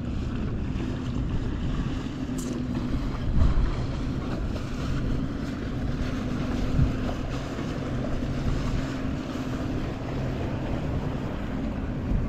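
Wind rumbling on the microphone by open lake water, with a steady low hum underneath.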